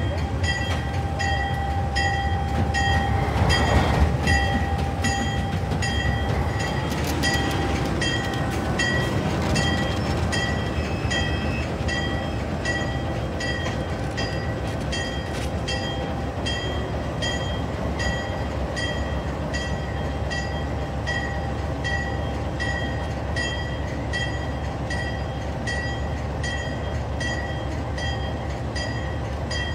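GE B32-8 diesel locomotive's engine running steadily with its bell ringing, about two strokes a second. A brief louder rush of noise comes about four seconds in.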